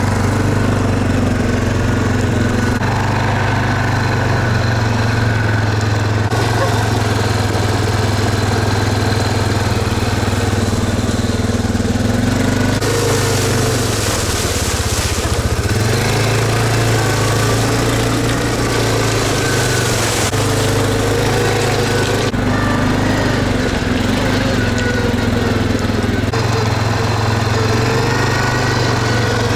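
Quad bike (ATV) engine running steadily, its note shifting abruptly several times.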